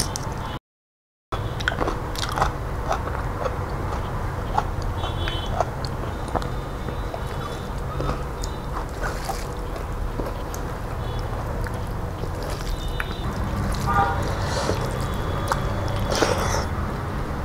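Close-up eating sounds: crunching and chewing of raw okra, then wet, squishy noises as rice and lentil dal are mixed and eaten by hand, made up of many small clicks and crackles over a steady low hum. The sound drops out completely for a moment about a second in.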